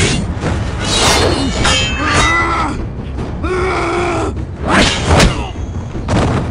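Movie fight sound effects: several heavy hits and impacts over a music score, with a man's strained, drawn-out cries between them, the longest about halfway through.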